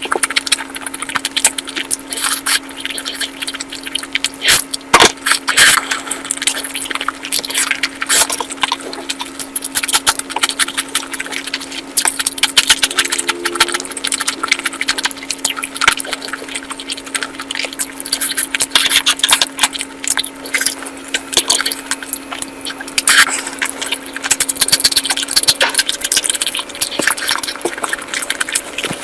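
Close-miked eating: wet chewing and smacking with irregular crackling crunches, over a steady low hum that shifts to a higher hum near the end.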